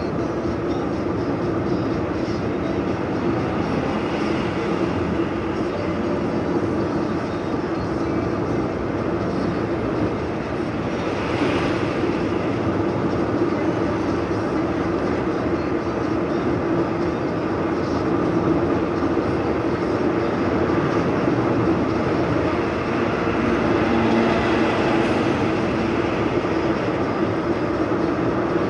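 Steady road and tyre noise with a low engine drone inside a moving car's cabin at highway speed, swelling briefly twice.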